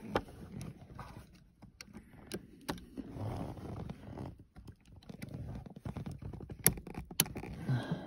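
Plastic seatbelt buckle and its cover on a Toyota Tundra being handled and pushed back into place, giving scattered sharp clicks over rubbing and scraping, with two louder clicks near the end. The buckle is being reassembled after its seatbelt-alarm sensor spring was pulled out.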